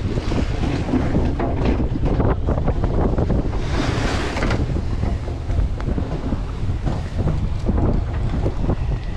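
Wind buffeting the microphone over choppy sea, with waves slapping and splashing against a boat's hull; a louder splash comes about four seconds in.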